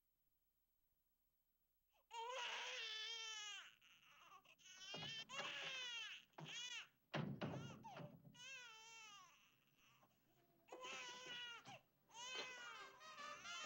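A baby crying: long, wavering high-pitched wails starting about two seconds in, broken by short breaths and pauses.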